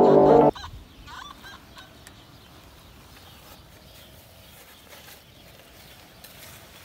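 Background music cuts off suddenly about half a second in, leaving quiet outdoor air with a few short bird calls over the next second or so.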